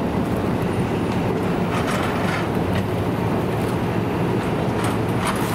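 Fire engine's diesel running at pumping speed, a steady low drone that supplies the charged hose line. A few faint scrapes come through, from a firefighter's tool working debris in the dumpster.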